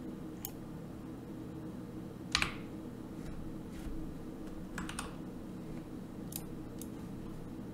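Computer keyboard keys and mouse buttons clicking, about nine separate clicks spread out, the loudest about two and a half seconds in, as a file path is typed and selected. A steady low hum runs underneath.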